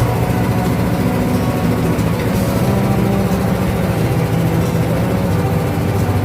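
Engine aboard a fishing boat running steadily at a constant low pitch.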